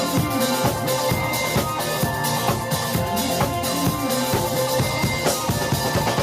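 Band music with a steady drum-kit beat of bass drum and snare under sustained instrumental parts.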